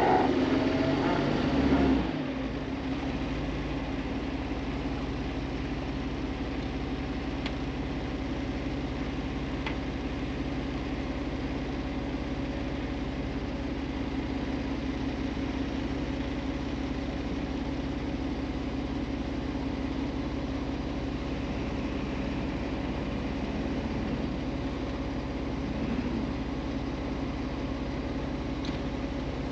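Off-road vehicle's engine running at a steady pitch while driving slowly over sand dunes, louder for the first couple of seconds.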